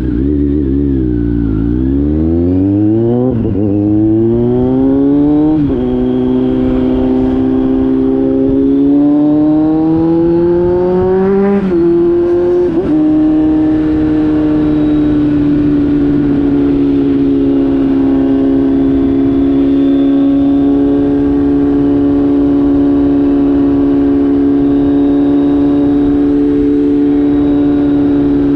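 Kawasaki Z900's inline-four through an SC-Project GP1 exhaust, easing off briefly, then pulling up through the gears with three upshifts, the revs dropping sharply at each shift, before settling into a steady cruise.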